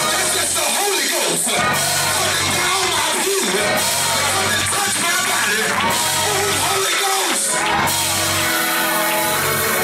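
Loud praise music with a man's voice singing and calling out through a microphone over it.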